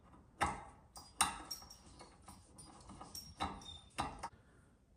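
A small metal tool scraping and clicking against the pins of the miner's six-pin power connector. The short, irregular clicks and scrapes come from cleaning the pins to expose bare metal for good contact.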